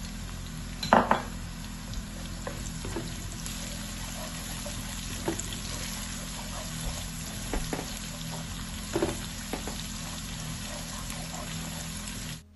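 Chopped garlic and panch phoron spices sizzling steadily in hot mustard oil in a metal karai. A wooden spoon stirs them and knocks against the pan now and then, loudest about a second in.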